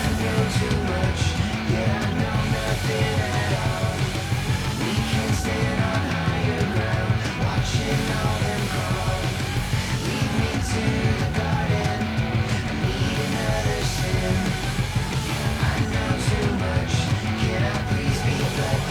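Rock music with a steady driving beat.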